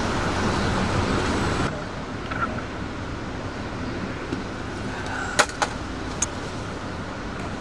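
Road traffic in a city street: a steady hum of cars, louder for the first couple of seconds, with two short sharp clicks a little past halfway.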